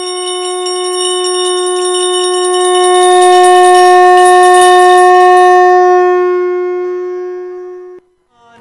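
Conch shell blown in one long, steady note that swells to its loudest in the middle, then fades and stops about eight seconds in.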